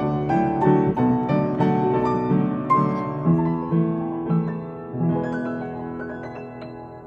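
Piano played four hands, a slow melody over chords, the notes struck a few times a second. It grows softer toward the end, with a last few notes about five seconds in left to ring and fade as the piece closes.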